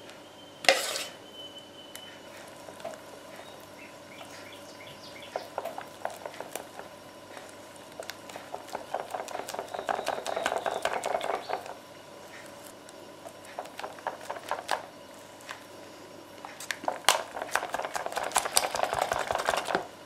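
Custard cream being mixed into mascarpone in a bowl: a utensil stirring, scraping and clicking against the bowl in two spells, one about halfway through and one near the end. A single sharp knock comes about a second in.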